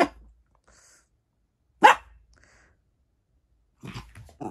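Small mixed-breed dog barking: two sharp single barks about two seconds apart, then a few quieter short barks near the end.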